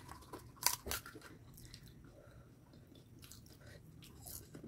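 Faint chewing of pani puri (fuchka), with a few sharp crunches of the crisp fried puri shells about a second in and again near the end.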